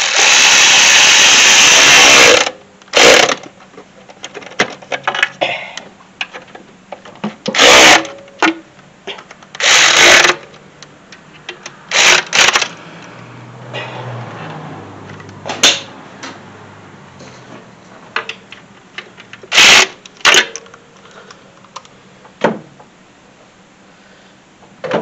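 Craftsman cordless ratchet running in repeated bursts as it drives intake manifold bolts down, after each was started by hand. The first burst lasts about two seconds, and about eight shorter ones follow.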